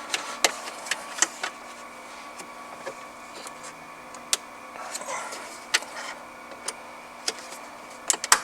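Scattered sharp clicks and light knocks of hands working hard parts in a car dashboard, such as plugging in wiring connectors, over a faint steady hum.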